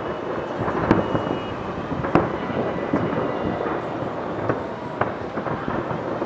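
Aerial firework shells bursting: a continuous rumble of booms with several sharper reports, the loudest about one and two seconds in.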